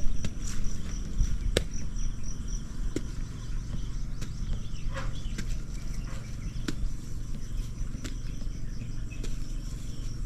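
Outdoor field ambience: a low steady rumble with scattered sharp clicks and crackles. An insect chirps in a quick run of high repeated notes from about half a second in until near the three-second mark.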